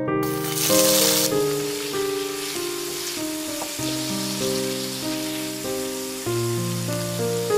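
Raw shrimp sizzling in hot oil in a frying pan. A loud burst of sizzle comes about a quarter second in as they hit the oil, then it eases to steady sizzling as they are stirred with a wooden spatula. Soft piano music plays over it.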